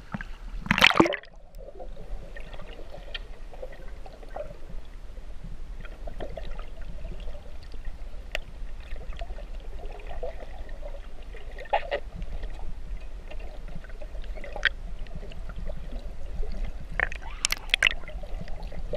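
A splash as the camera goes under the surface about a second in, then muffled underwater sound: a low rumble with faint crackling and the odd sharp tick. Near the end, louder splashing and bubbling from swimmers kicking with fins close by.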